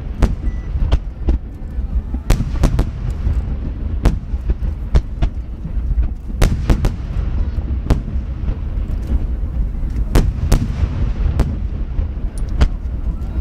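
Rapid barrage of large 30 cm (shakudama) aerial firework shells launching and bursting: sharp bangs come one or two a second, irregularly spaced, over a continuous low rumble of overlapping booms.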